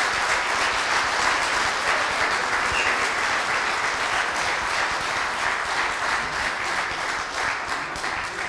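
Audience applauding: many hands clapping in a dense, steady wash that eases off slightly near the end.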